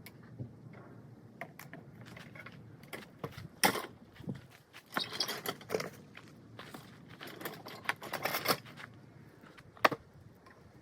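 Irregular clicking and rattling of small hard objects being handled, with a couple of sharper knocks, one about four seconds in and one near the end.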